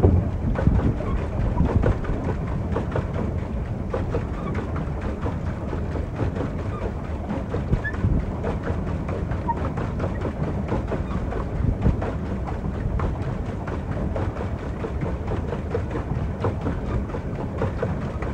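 Wind buffeting the microphone as a small boat moves across the lake, a steady low rumbling noise with no clear tones.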